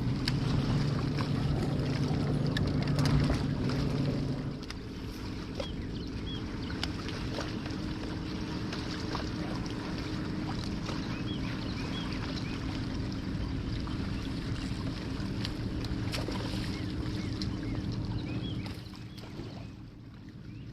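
A bass boat's outboard motor running steadily under way. It eases off to a lower, steady drone about four seconds in, then drops away near the end.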